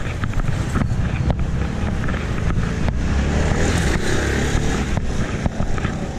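Motorcycle passing close by on a narrow street, its engine and tyre noise swelling about three to four seconds in, over a steady low wind rumble on the action-camera microphone.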